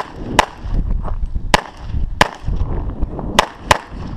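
Six pistol shots from a .40 S&W EAA/Tanfoglio Witness Elite Match, fired at targets in quick pairs and singles during a timed USPSA stage.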